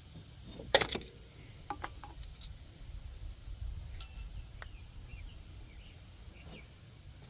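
Metal tools and parts clinking: one sharp double clink about a second in, then a few lighter ticks and taps.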